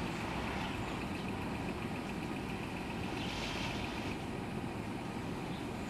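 Steady low rumble of a motor vehicle's engine running, with a brief hiss about three and a half seconds in.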